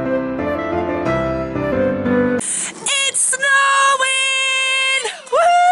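Soft piano music, cut off suddenly about two and a half seconds in by a woman's voice singing long, high held notes with short breaks between them.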